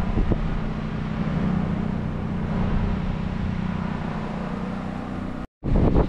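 LG Dual Inverter window air conditioner running steadily: a fan and compressor hum with a few steady low tones. About five and a half seconds in the sound cuts out for a moment, then a loud low rumble comes in at the end.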